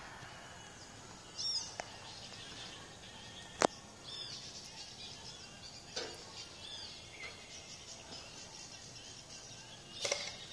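Outdoor background noise with birds chirping briefly three times, and one sharp loud crack about a third of the way in, the loudest sound; a few fainter ticks come before and after it.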